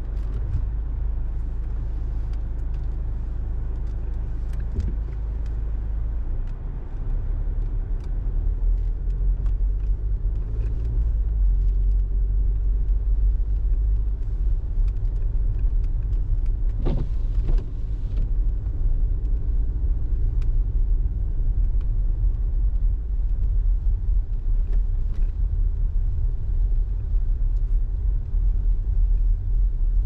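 Car driving on snowy streets: a steady low rumble of tyres and engine that grows louder about a quarter of the way in, with one brief sharp bump a little past the middle.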